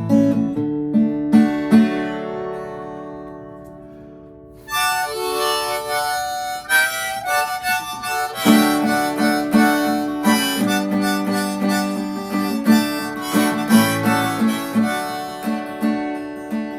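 Instrumental country intro on acoustic guitar. A strummed chord rings out and fades. About five seconds in, a harmonica comes in and plays the melody over steady guitar strumming.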